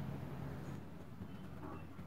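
Quiet room tone: a steady low rumble, with two faint short high chirps, one about a second in and one near the end.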